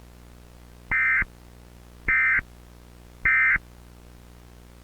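Emergency Alert System SAME data tones: three short, identical bursts of warbling digital data, each about a third of a second long and a little over a second apart, the End of Message code that closes an EAS alert. A steady low hum runs underneath.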